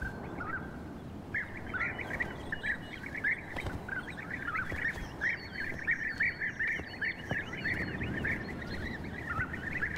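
A group of European bee-eaters calling: a steady chatter of short, overlapping calls that thickens about a second in, over a faint steady background hiss.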